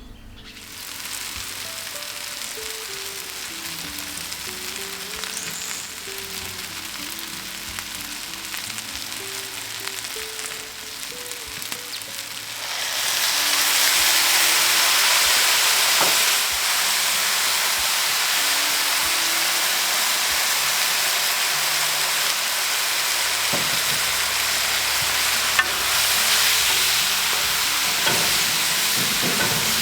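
Food frying in a hot cast-iron potjie pot, a steady sizzle that grows clearly louder a little under halfway through. Light background music plays underneath.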